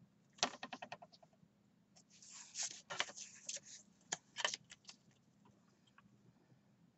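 Craft paper being handled and adjusted: a quick run of small clicks about half a second in, then a couple of seconds of rustling and crinkling with sharp ticks, and two last clicks just after four seconds.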